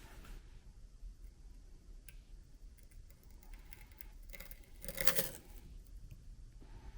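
Stack of wooden paddle pop sticks under increasing load in a test rig, with faint crackles, then a loud splintering crack about five seconds in as the sticks fail.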